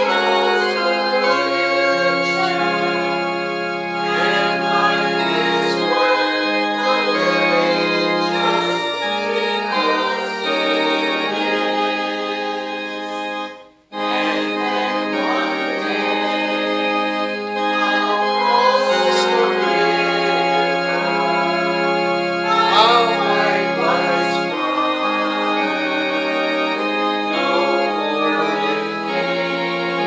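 A hymn sung with organ accompaniment, held chords under the voices. The sound cuts out for a moment about halfway through, then the music carries on.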